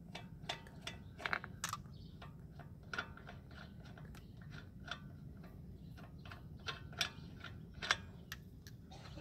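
Irregular light clicks and ticks of a lug wrench and lug nuts as the wheel with the flat tire is taken off a jacked-up car.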